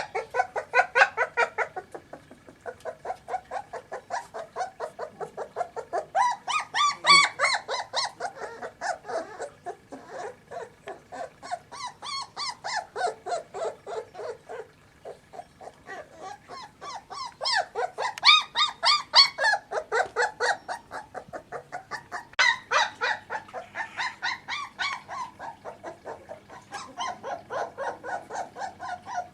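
Young Kleine Münsterländer puppies squeaking and whimpering in rapid, repeated little calls, several a second, rising and falling in waves.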